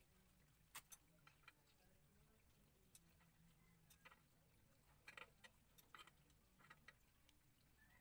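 Near silence with a faint low hum and scattered faint clicks of a hand wrench on a motorcycle's oil drain plug as it is loosened.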